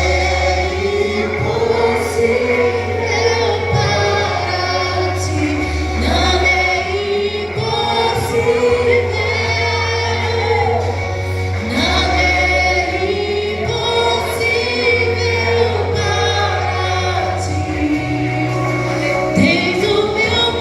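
Church gospel vocal group singing a worship song in harmony with instrumental accompaniment, held bass notes changing every couple of seconds beneath the voices.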